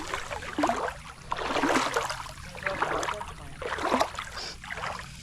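Splashing and sloshing of someone wading through shallow creek water, about one swell of splashing per step, roughly once a second.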